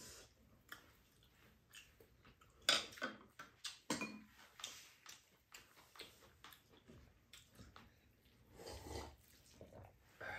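Spoons and chopsticks clinking and scraping against ceramic bowls during a meal, in scattered light clicks, the loudest a few seconds in.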